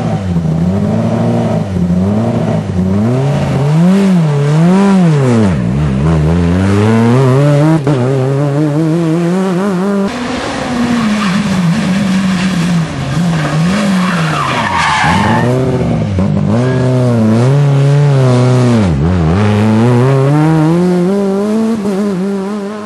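Renault Clio Super 1600 rally cars' 1.6-litre four-cylinder engines at full throttle, the revs climbing and dropping again and again with gear changes and lifts through the corners. A brief rising tyre squeal past the middle.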